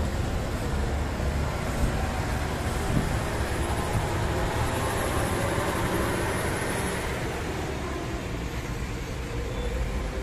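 Diesel engine of a small mountain bus running hard under load as it climbs a steep hairpin bend, a steady low rumble with other traffic around it.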